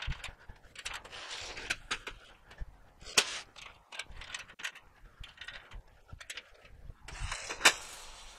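Expanded-metal trailer tailgate being released and let down against a lift-assist cable to test the tension: scattered metallic clicks and rattles from latches, hinges and cable, with sharper clanks about three seconds in and near the end.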